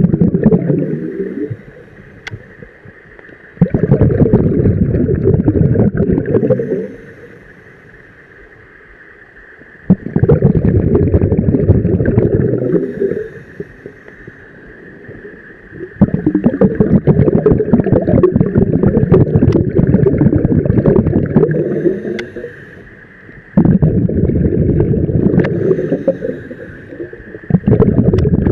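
Scuba diver's exhaled air bubbling out of the regulator, heard underwater as a loud bubbling rumble. Each exhale starts abruptly and fades, with quieter pauses for the inhale between them, about every six seconds. A faint steady hiss runs underneath.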